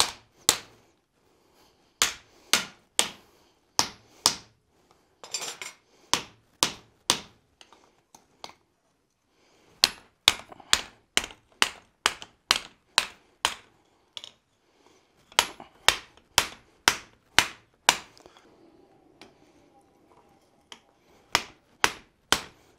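Hand hammer striking red-hot steel on an anvil: sharp, ringing blows at about two a second in runs of several, with short pauses between runs. The axe blank is being folded around to form a wrapped eye.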